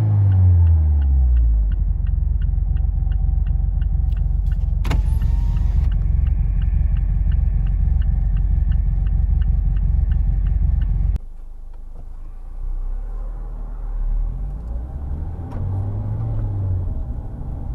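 A 2019 Mazda Miata ND2's four-cylinder engine running rough: its revs fall away, it runs with a steady low rumble and an even ticking about two and a half times a second, then the sound drops suddenly about eleven seconds in and the revs rise and fall again near the end. The uneven idle is the limp-mode rough idle and misfire the owner is showing.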